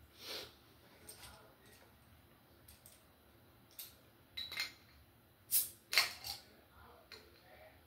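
Metal bottle opener clicking and scraping against the cap of a glass bottle as it is pried at, with scattered clinks and two sharp, loudest clicks about five and a half and six seconds in.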